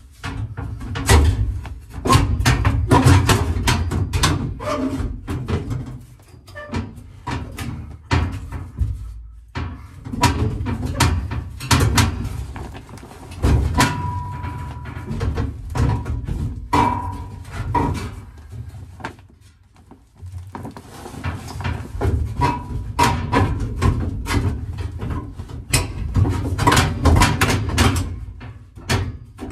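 Sheet-metal rear package tray being forced into place around a roll bar: irregular clusters of clanks, rattles and scrapes of metal against the roll bar tubes and car body, with dull thumps, pausing briefly a few times.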